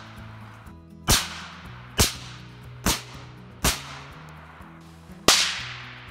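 Five rifle shots from an AR-15, each a sharp crack with a short echoing tail, spaced about a second apart. The last, a little over five seconds in, is the loudest.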